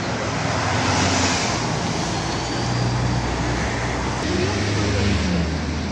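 City street traffic: buses and cars moving slowly past, a steady low engine hum over continuous road noise, swelling briefly a couple of times as vehicles pass.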